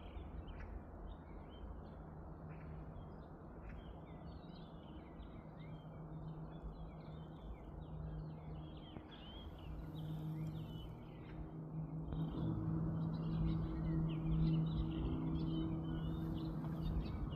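Many small birds chirping and twittering together over a steady rushing background noise, with a low steady hum that grows louder in the second half.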